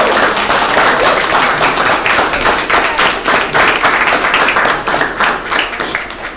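Guests applauding: many people clapping at once, easing off toward the end.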